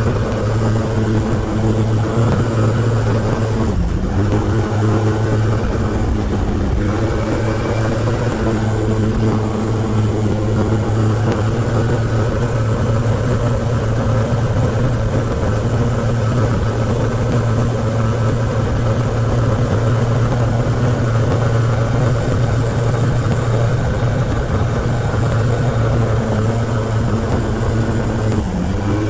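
Motorcycle engine running steadily under way, a loud even drone in sped-up playback, with short dips in the drone about four and six seconds in.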